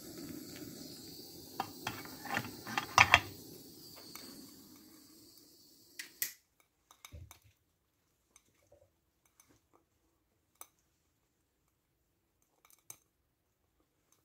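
A butane torch lighter hissing steadily as it lights a can of Sterno, with several sharp metal clinks of the can being handled, the loudest about three seconds in. The hiss cuts off about six seconds in, leaving only faint scattered ticks.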